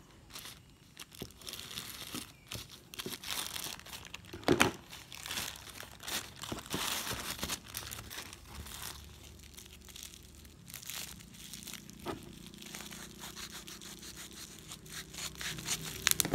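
Plastic courier bags and bubble wrap crinkling and rustling as the parcels are handled and torn open by hand. There is a sharper snap about four and a half seconds in.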